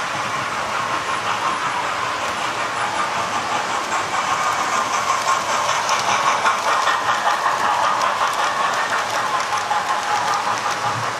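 Model railway trains running: a steady electric motor whir with rapid clicking of small wheels over the rail joints. It swells a little as a train passes close, then cuts off abruptly at the end.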